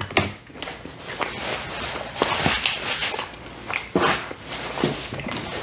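Close-miked chewing of a mouthful of pizza, with irregular wet mouth clicks and smacks.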